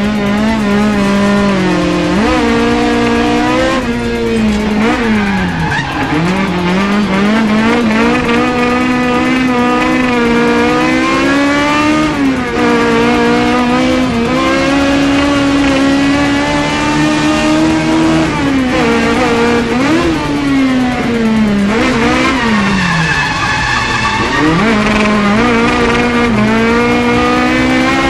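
Naturally aspirated Toyota Corolla KE72 wagon's engine revving hard while drifting, its pitch climbing over several seconds and then dropping again and again as it is driven through corners, with tyres squealing.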